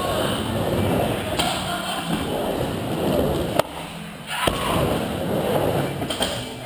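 Skateboard wheels rolling on a wooden bowl, a steady rumble, with a sharp clack about a second and a half in. The rolling drops away for about a second while the board is in the air, then a knock as it lands back on the wall.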